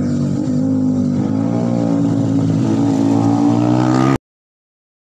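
Yamaha R15 V3's 155 cc single-cylinder engine through an Austin Racing full-system exhaust, accelerating past on a flyby, its pitch climbing as it nears. The sound cuts off abruptly about four seconds in.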